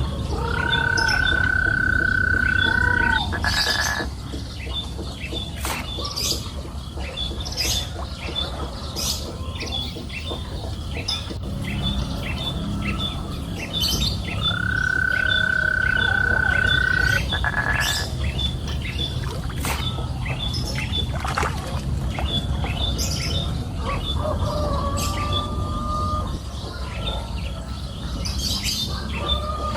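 Birds chirping and calling, with a short high note repeating steadily and a long steady whistled note held for about two seconds, twice, over a low steady rumble.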